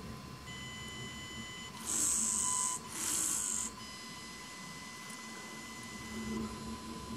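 Two short bursts of hissing from the fischertechnik pneumatic robot arm, each about a second long, one right after the other about two seconds in, as the test is rerun. Under them is a faint, steady, high-pitched electronic whine.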